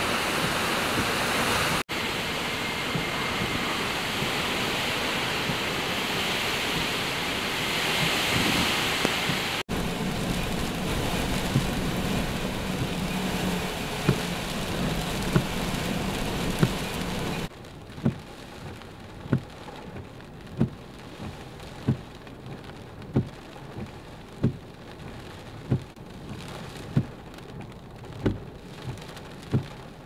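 Storm wind gusting to about 50 mph with heavy rain, an even noise loud on the microphone. After a cut the rain is quieter, with a low knock repeating about every one and a quarter seconds.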